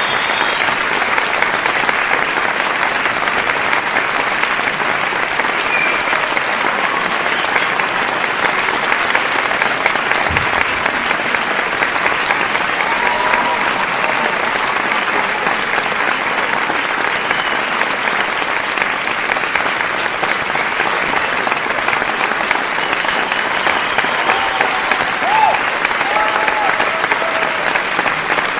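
A large crowd applauding: dense, steady clapping that neither builds nor fades.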